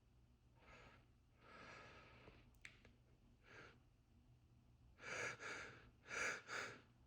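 A man breathing heavily as sneezing powder irritates his nose. Soft breaths give way, about five seconds in, to four short, sharp breaths in two quick pairs, much louder than the rest.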